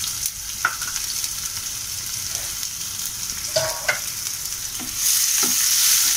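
Chopped onion sizzling in hot oil with cumin seeds in a non-stick kadhai, with a few short clinks. About five seconds in the sizzle grows louder as the onions are stirred with a spatula.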